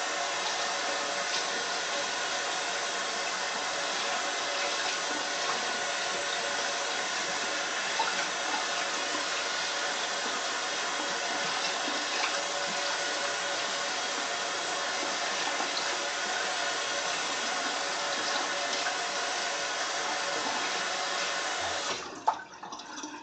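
Tap water running steadily into a bathroom sink as things are rinsed out. It shuts off about 22 seconds in, with a sharp knock just after.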